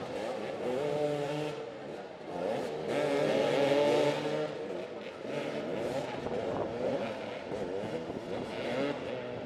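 Several motoball motorcycles revving up and down together as they scrap for the ball, their engine notes overlapping and rising and falling constantly, loudest about three to four seconds in.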